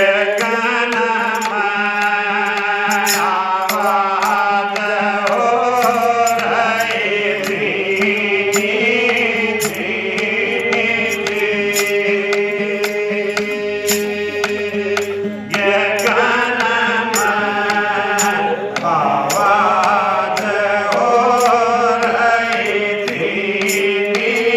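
Instrumental intro of a devotional bhajan: a melody over a steady drone, with a regular percussion beat.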